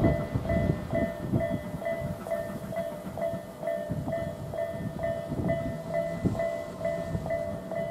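Railway level-crossing warning bell ringing steadily, about three dings a second, the signal that a train is approaching. Under it runs an uneven low rumble.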